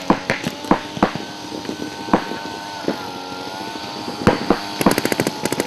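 Paintball markers firing during a game: scattered single shots, then a rapid string of shots from about five seconds in, over a steady hum.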